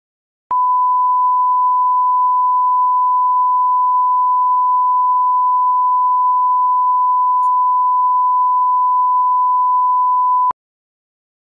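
Bars-and-tone line-up tone: one steady, unbroken pure beep lasting about ten seconds, starting half a second in and cutting off sharply. It is the audio reference tone that goes with colour bars at the head of a tape, used to set playback level.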